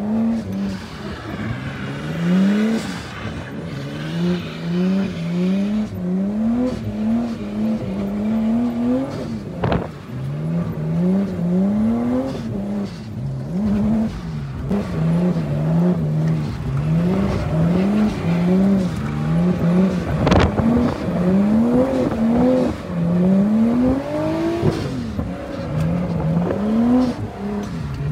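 Nissan Skyline's engine revving up and falling back over and over, about once a second, as the car is held in a drift. There are two sharp knocks, one about a third of the way in and one about two thirds of the way in.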